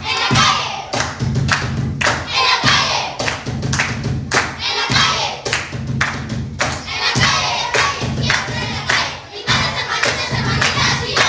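A steady beat of thumps, about two a second, with a group of voices shouting over it.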